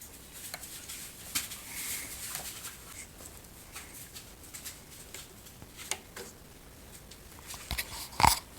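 Scattered light clicks and rustles of hands handling voltmeter leads and tractor wiring, with one sharp knock near the end.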